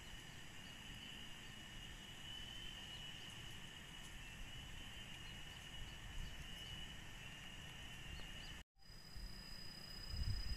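Steady chorus of insects giving an even, high, unbroken drone over a low rumble. About eight and a half seconds in the sound breaks off for an instant. When it returns, a second, higher insect tone joins and the low rumble grows heavier near the end.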